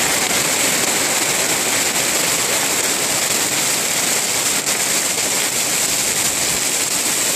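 Heavy hail and rain pelting down, a steady, dense hiss.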